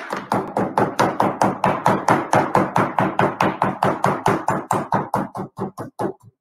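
Knife chopping rapidly on a cutting board, an even run of about five or six sharp chops a second that tapers off near the end.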